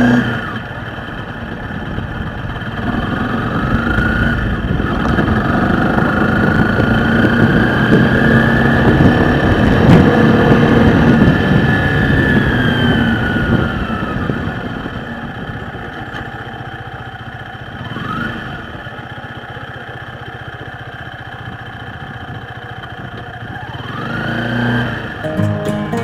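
Vehicle engine and road noise from a moving vehicle, the engine note climbing as it accelerates, then easing off and quieting a little before halfway. Shorter rises in engine pitch come later, one near the end.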